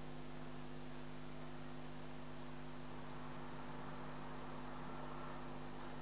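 Low, steady electrical hum with a faint hiss, the idle noise of the sound system with no one speaking.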